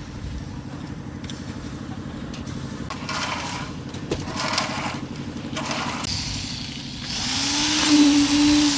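A small engine running steadily with a fast throb. It revs up about seven and a half seconds in, holds briefly, then begins to drop.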